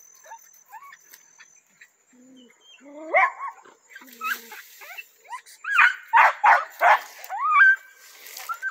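Perdigueiro hunting dogs barking and yelping: a few rising yelps about three seconds in, then a run of loud, quick barks from about six seconds on.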